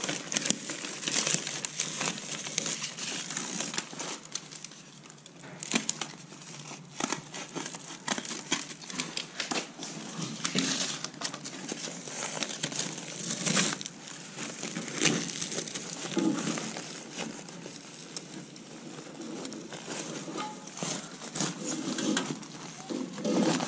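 Flexible aluminium-foil ventilation duct and adhesive tape crinkling and crackling as hands wrap tape around the duct's joint on a spigot. There are irregular rustles and many small sharp clicks.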